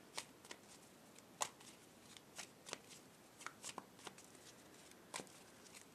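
A deck of tarot cards shuffled by hand, packets dropped from one hand onto the other: faint, irregularly spaced card clicks and slides.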